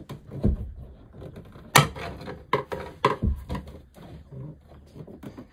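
Irregular knocks and clicks from working at the macerator pump tank's lid and its locking tab. The sharpest click comes about two seconds in.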